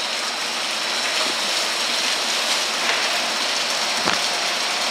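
Yeast slurry pouring steadily from a hose and splashing into a floor trench drain: dead yeast being dumped from the bottom of a conical fermenter. A faint knock about four seconds in.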